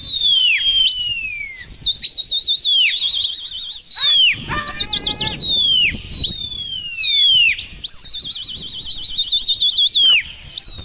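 Many high whistles overlapping without a break: falling glides and fast warbling trills.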